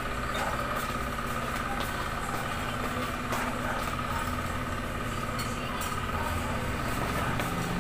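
Steady mechanical hum with a faint steady high tone over it, and a few faint clicks.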